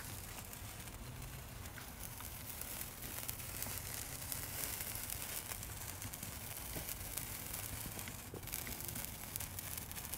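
Handheld sparkler burning with a faint fizz and fine, rapid crackling.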